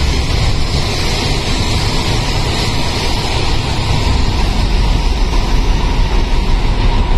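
MRT Putrajaya Line train running, heard from inside the passenger car: a steady low rumble and hiss of wheels and motors on the track, with a faint steady whine.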